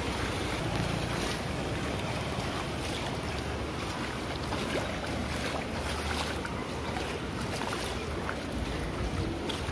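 Floodwater sloshing and splashing as someone wades through a waterlogged street, with steady wind rumble on the microphone.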